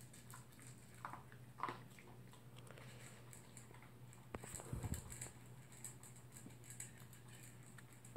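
Toy poodle eating from a bowl: faint chewing and light clicks of food and muzzle against the bowl, with a few louder knocks about a second in and again around four to five seconds in.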